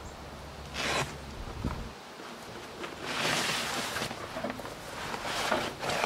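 A fabric grill cover rustling and swishing as it is tugged and pulled up off the grill, in three short bursts, about a second in, around three seconds in and near the end. A low steady rumble in the background stops about two seconds in.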